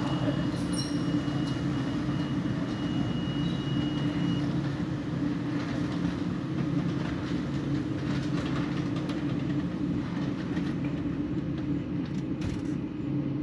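Steady low drone of the fire engine's diesel idling in the bay while the motorized overhead bay door lowers and closes. A thin steady high tone runs through the first few seconds.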